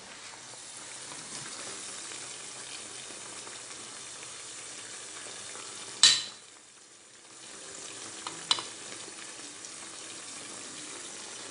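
Sausage and frankfurter slices with peppers sizzling as they fry in an enamel pot, a steady hiss. A sharp knock about six seconds in, with a few lighter clicks about two seconds later.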